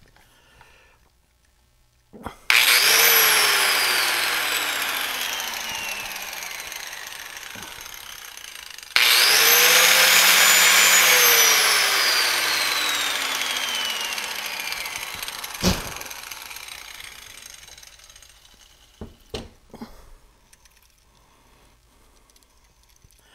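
Corded electric grinder run twice on the power inverter's output through the newly hardwired circuit: each time a whine rises quickly as the motor spins up, then falls slowly for several seconds as it coasts down. The grinder running shows the circuit now works after the tripped inverter was reset. A sharp knock comes as the second run ends.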